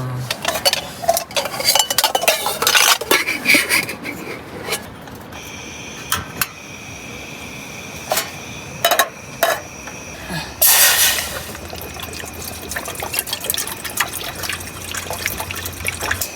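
Metal cookware clinking and clattering, then water being poured into a small pot for making tea.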